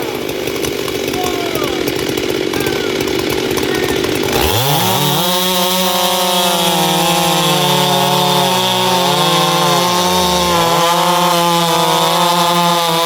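Two-stroke race-ported chainsaw revved up to full throttle about four seconds in and held at a high, steady scream, with a few brief dips in pitch. Before that comes a rougher, noisier saw sound without a clear pitch.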